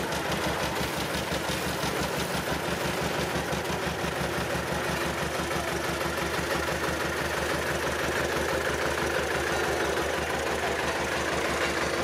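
Road roller's diesel engine running steadily with an even, rhythmic low pulse as the steel drum rolls slowly forward.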